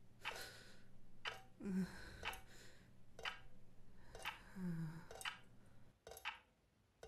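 Faint clock ticking about once a second, with two quiet, low, falling voice sounds in between.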